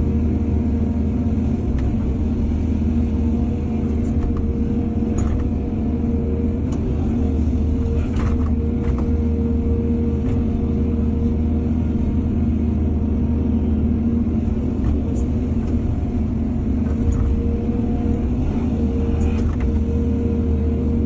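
Excavator's diesel engine running steadily under work, with a few brief knocks scattered through.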